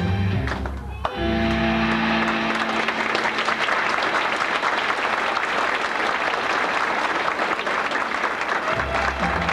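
Audience applause: a dense, steady clapping that swells up about a second in, after recorded music breaks off with a click and holds one last note. The music comes back under the clapping near the end.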